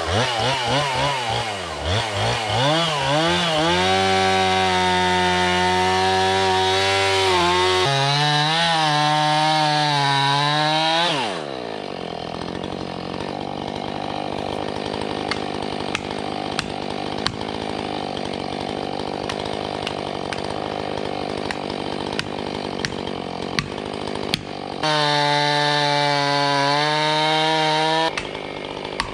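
Husqvarna 445 two-stroke chainsaw with a 16-inch bar felling a pine. It is blipped a few times, then held at full throttle cutting into the trunk for about seven seconds, and drops back to a ticking idle. Near the end it revs up and cuts again for about three seconds before falling back to idle.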